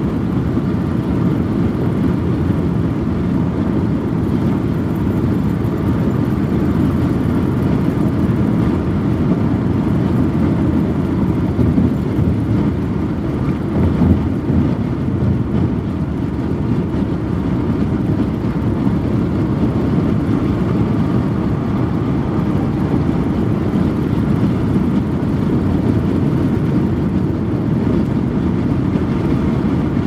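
Steady low road and tyre rumble heard inside a car's cabin while it cruises at freeway speed, with a brief swell about halfway through.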